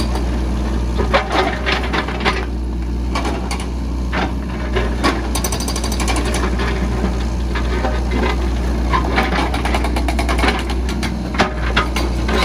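Case 695ST backhoe loader's diesel engine running steadily, with many irregular sharp metallic knocks and clanks over it.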